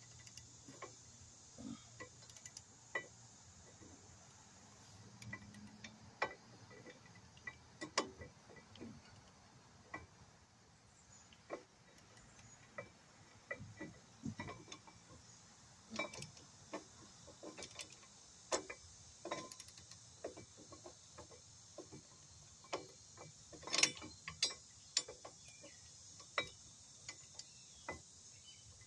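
Scattered clicks and clinks of hand tools on metal while working on a truck's front wheel hub, irregular and a few per second, with a louder cluster of knocks near the end. A steady high hiss runs underneath.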